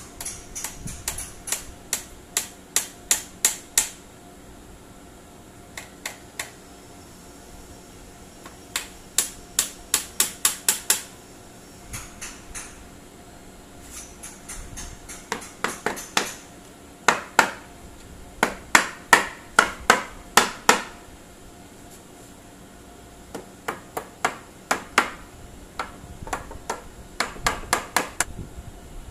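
Claw hammer driving nails into pallet-wood slats: runs of sharp, quick strikes, about three a second, broken by short pauses.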